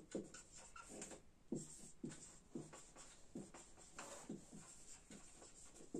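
Whiteboard marker writing on a whiteboard: a string of short, faint strokes, about two a second, as words are written out.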